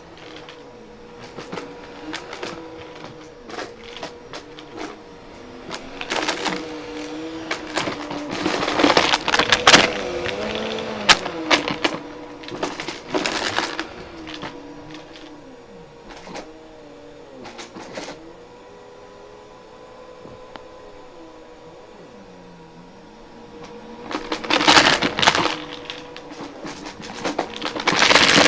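Bissell upright vacuum cleaner running over carpet with a steady motor hum, with pennies clattering and rattling as they are sucked up through the brush head and hose. The clatter comes in several loud bursts between stretches of plain running.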